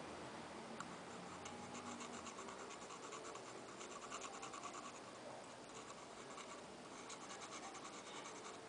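Faint, rapid back-and-forth scratching of a tool scraping on the metal face of a viscous fan clutch. It comes in two runs, the second shorter and near the end.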